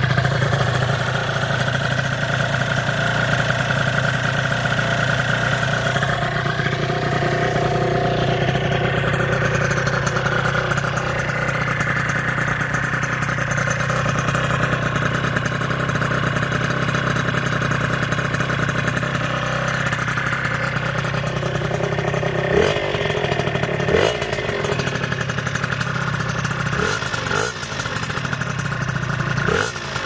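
Honda Dio two-stroke scooter engine, tuned with a Polini Corsa cylinder kit, Malossi crank, Polini 24 PWK carburettor and Arrow expansion-chamber pipe, idling steadily through the exhaust. It is blipped on the throttle in short revs twice about two thirds through, and a few more times near the end.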